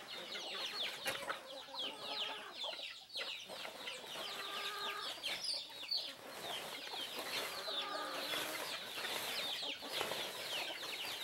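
A flock of free-range domestic chickens clucking and calling, with a few longer drawn-out hen calls, over a constant chatter of high, falling chirps.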